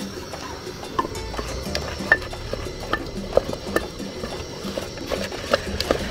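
Wooden spatula stirring thick cocoyam fufu dough in an aluminium pot: irregular knocks and scrapes of the wood against the metal, about two a second.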